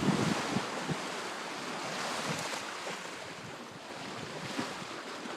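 Sea water rushing and splashing along a sailboat's bow as it moves through waves, with wind buffeting the microphone in low thumps during the first second.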